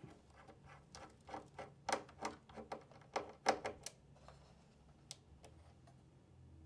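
Cross-head screwdriver turning a small screw out of a PlayStation 5's SSD expansion bay: an irregular run of sharp little clicks and ticks for about four seconds, then one more click about five seconds in.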